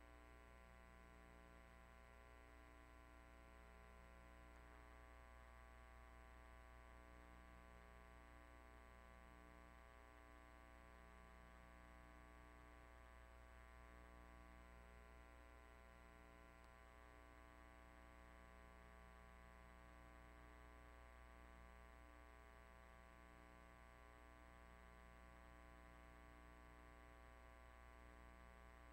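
Near silence with a faint, steady electrical hum, mains hum with many overtones.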